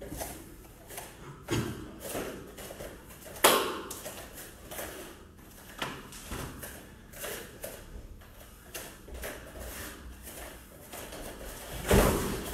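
Bare feet scuffing and slapping on foam jigsaw mats as two no-gi grapplers circle and grip-fight, with scattered soft thuds. Near the end a louder burst of thuds and scuffling as one is taken down to his knees on the mat.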